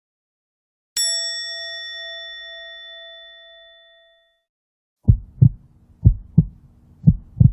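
A single bell-like ding that rings out and fades over about three seconds, then a heartbeat sound effect: three low double thuds, about one a second.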